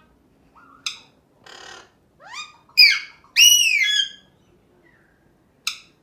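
Male Alexandrine parakeet calling in a string of varied sounds: a short chirp, a brief raspy noise, a rising whistle, then two loud arching screeches, the second held for most of a second, and one sharp chirp near the end.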